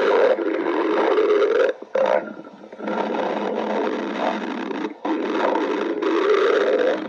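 A person's stomach growling in long gurgling rumbles, with short breaks about two seconds in and again near five seconds.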